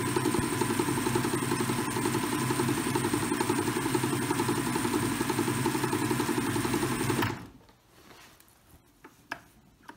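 Atlas metal lathe running at a steady speed while 0000 steel wool is held against the spinning aluminum pen nib to polish it. The running sound cuts off suddenly about seven seconds in.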